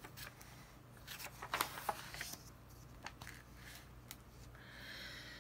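Faint rustling and flicking of paper as a picture book's page is turned: a few short rustles and clicks, then a soft hiss near the end.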